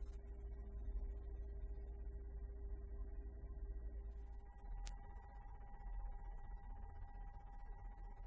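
Steady 10 kHz sine test tone played through the car-stereo door speaker of a Subaru Sambar kei truck, in the normal door without any deadening treatment. It is a single unbroken high-pitched whistle held at one pitch.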